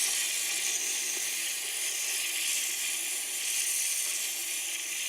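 Steady fizzing hiss of Coca-Cola reacting with a sugar cube rubbed in cigarette ash, the drink foaming up vigorously.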